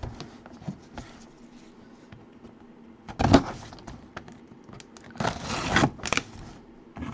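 A cardboard box being handled by gloved hands: light knocks and rubs, with two louder scraping sounds, one about three seconds in and a longer one between five and six seconds.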